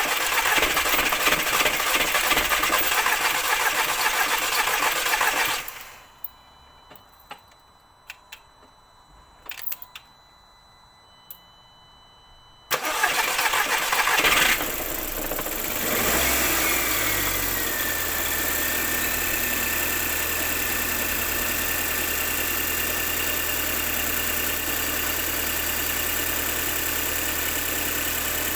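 Mk2 Audi TT four-cylinder petrol engine cranking on the starter for about five seconds without firing, while fuel is still working its way to the freshly serviced injectors. After a pause it cranks again and catches about fourteen seconds in, flaring up with a whine that slides down and holds as it settles into a steady cold idle. This is a smooth cold start, with the cylinder 1 misfire gone.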